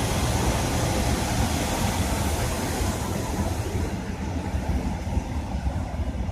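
Class 144 Pacer diesel multiple unit moving through the station, with a steady rumble and hiss; the hiss fades about four seconds in.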